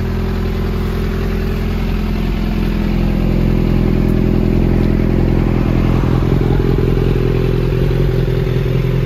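Suzuki Inazuma 400's inline-four engine idling steadily through a Danmoto carbon slip-on muffler, a little louder from about three seconds in.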